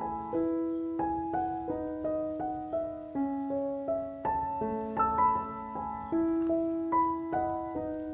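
Background piano music: a gentle melody of struck notes over slow sustained bass notes.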